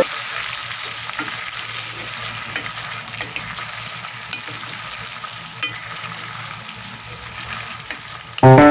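Whole shrimp sizzling in a stainless steel pot as they are stirred with a wooden spatula: a steady frying hiss with faint scattered ticks. Background music comes back in near the end.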